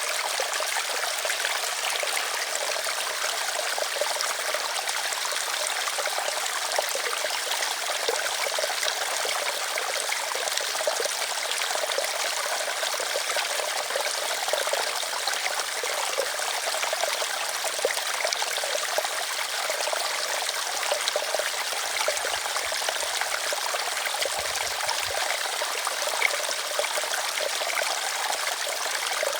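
Small stream running and trickling, a steady bright splashing and babbling with no low rumble.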